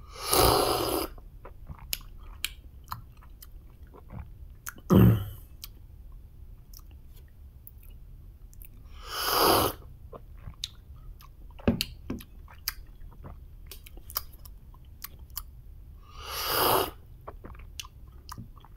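Coffee slurped loudly from small ceramic cupping bowls during a tasting, four slurps a few seconds apart, with light clicks of the cups and mouth sounds between them.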